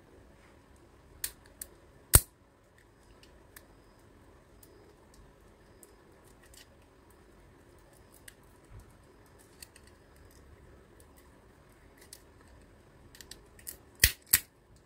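Sharp plastic clicks and snaps as a pointed tool pries the back cover off a plastic light-dimmer module: a loud snap about two seconds in, a few faint ticks, then a cluster of clicks near the end as the cover comes free.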